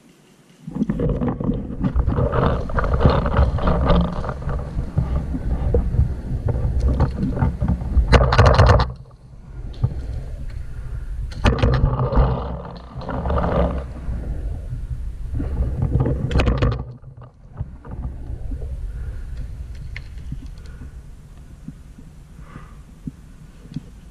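Loud rumbling wind and handling noise on a body-mounted camera's microphone as a paintball player moves across the field, broken by a few sharp clicks. It drops to a quieter hiss after about seventeen seconds.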